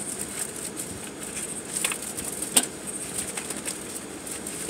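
Rustling and light clicks of things being handled, with one sharp click about two and a half seconds in.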